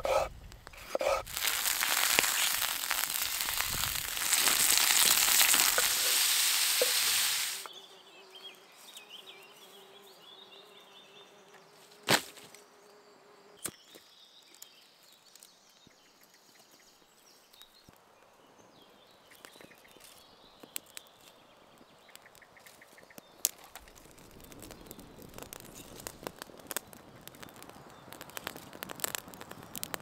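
Open-campfire cooking: a loud steady sizzling hiss for the first seven seconds or so that cuts off abruptly, then a quieter fire with scattered crackles and pops, one sharp snap about twelve seconds in, and denser crackling near the end.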